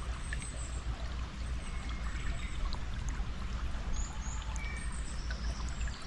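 Running stream water, a steady rush, with birds chirping in short high calls, more of them in the second half.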